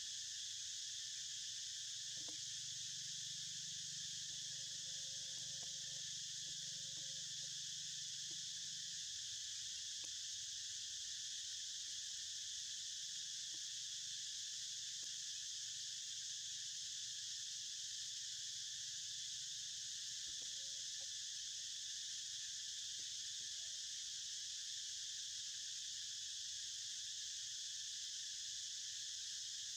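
A steady, unbroken chorus of insects, an even high-pitched drone, with a few faint soft sounds now and then beneath it.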